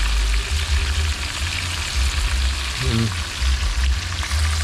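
Porgy fish frying in hot oil in a skillet: a steady crackling sizzle, with a low, uneven rumble underneath.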